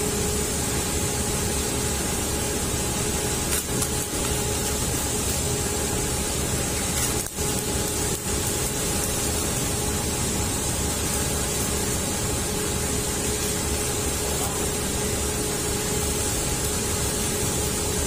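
Stick-welding arc hissing and crackling steadily as a weld is run on a steel forklift fork, with a steady hum under it. It breaks off briefly a few times, around four and seven seconds in.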